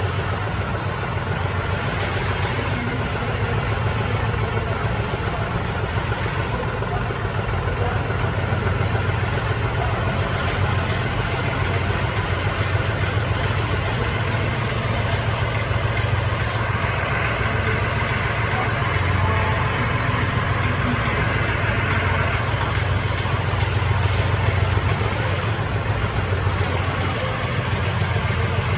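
John Deere 5405 CRDi tractor's common-rail diesel engine running steadily at idle, with a deep, even hum.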